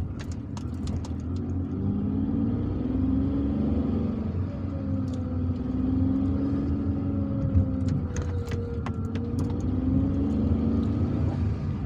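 Car engine and road noise heard from inside the cabin while driving slowly, the engine note rising and falling gently. A few light clicks sound over it.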